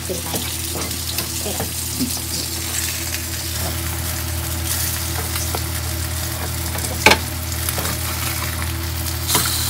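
Salmon and sea bass fillets sizzling in oil in a cast-iron skillet while a nylon spatula turns and nudges them, with a steady low hum underneath. One sharp knock about seven seconds in.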